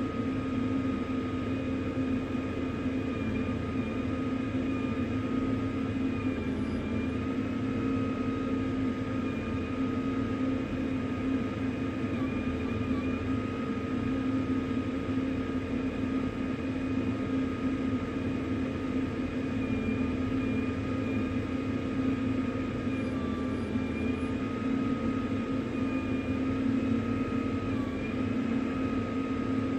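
A steady mechanical drone with a few constant humming tones that waver slightly, unbroken throughout.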